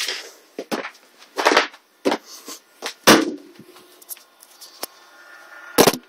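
Footsteps and rustling handling noise from a hand-held phone as the person walks with it, in short irregular bursts. Near the end comes a louder, sharper thump as the phone is set down on the floor.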